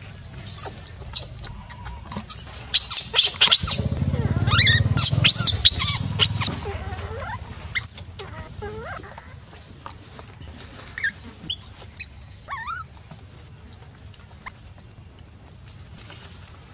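Baby macaque crying in shrill, high screams that sweep up and down in pitch, packed close together over the first eight seconds, with a shorter bout a few seconds later.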